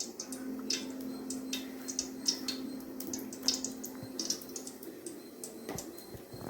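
Cooking oil heating in a kadai on the stove, giving irregular light crackles and small pops as it comes up to temperature for tempering spices. A faint low hum sits underneath for the first four seconds or so.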